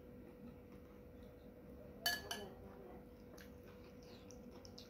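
A metal spoon clinks sharply against a ceramic soup bowl about two seconds in, with a short ring and a smaller second clink just after, then a few faint clicks. A faint steady hum runs underneath.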